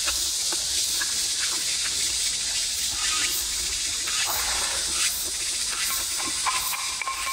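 A person chewing a mouthful of food, with scattered light clicks of wooden chopsticks against a ceramic bowl, over a steady high hiss.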